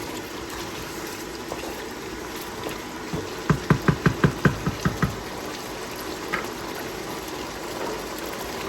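A pan of thick lamb stew being stirred over a steady background hiss. A quick run of about ten low, wet knocks comes from about three to five seconds in.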